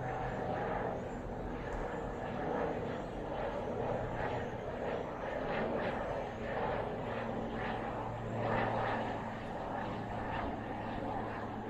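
Pilatus PC-12NG single-engine turboprop landing, its engine and propeller giving a steady drone with a low hum that swells and fades a little.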